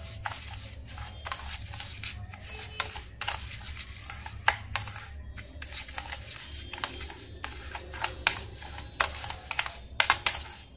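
Metal spoon stirring a gritty paste of sugar, honey and lemon juice in a small bowl: irregular clicks and scrapes as it knocks and drags against the bowl, the loudest cluster near the end. A steady low hum runs underneath.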